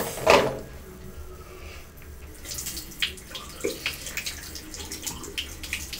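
Bathroom sink tap running, water splashing into the basin, louder from about two and a half seconds in. A short loud sound comes just after the start.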